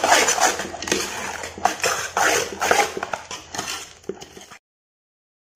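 Steel spoon stirring puffed rice charumuri mix in a stainless steel bowl: repeated scraping, rustling strokes with clinks of the spoon against the bowl. It stops suddenly about four and a half seconds in, followed by dead silence.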